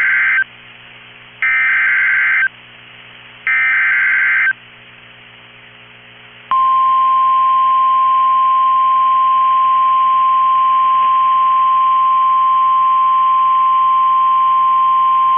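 Emergency Alert System SAME header: the end of one buzzing digital data burst and two more, each about a second long with a second's gap between, then, about six and a half seconds in, the steady single-pitch 1050 Hz NOAA Weather Radio warning alarm tone. It signals the start of a new weather warning.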